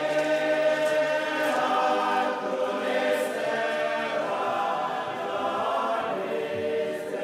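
A choir singing without instruments, the voices holding long, sustained chords.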